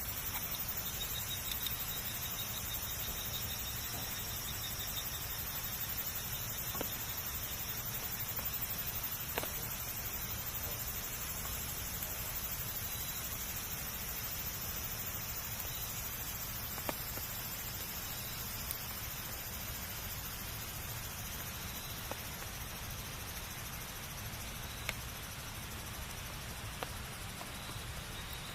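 Wood campfire burning, a steady hiss broken by single sharp crackles and pops every few seconds.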